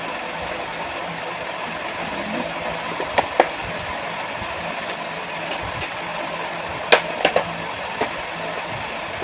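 Clicks and light clatter of a clear plastic jewellery box and jewellery being handled: two clicks about three seconds in, and a sharper group about seven seconds in. Underneath is a steady background hum and hiss.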